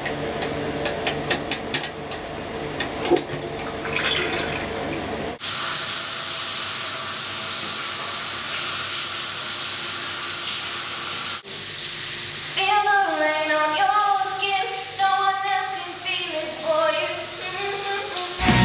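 Several clicks at a toilet, then a toilet flush: water rushing steadily for about six seconds. In the last few seconds a short pitched tune plays over running water.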